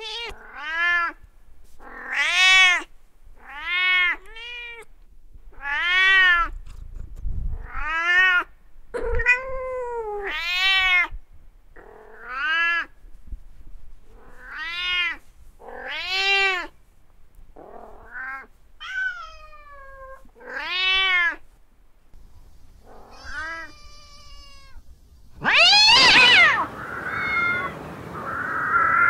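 Domestic cats meowing: a long string of separate meows, each rising and then falling in pitch, about one every second or so. A louder, longer yowl comes near the end.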